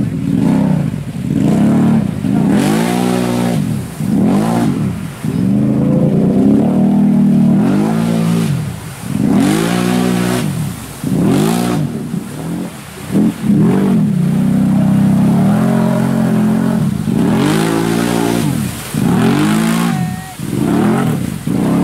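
ATV engine revved hard and let off over and over, the throttle worked in quick blips about once a second with a couple of short steadier holds, as the machine is driven through deep mud.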